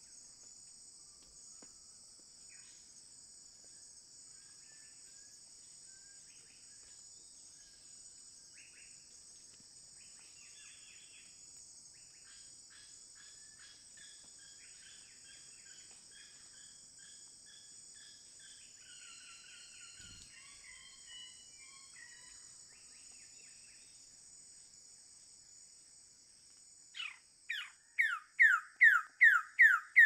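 Forest ambience: a steady high insect drone with faint, scattered bird calls. Near the end a bird starts a loud series of rapid downward-slurred calls, about three a second.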